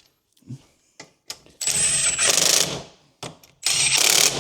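Power impact wrench run in short bursts of about a second each on the wheel nuts, each burst opening with a high whine; there are two full bursts and a third near the end, with light knocks of the socket and wrench between them.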